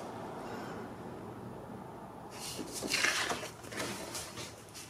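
Large sheets of patterned scrapbook paper rustling and sliding as they are lifted off a cutting mat, a brief burst of rustling starting about halfway through and loudest a little after.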